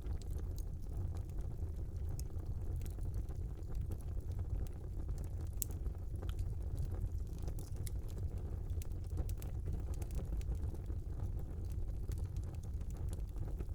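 Wood fire burning in a small fireplace: a steady low rumble of flames with scattered small crackles and pops.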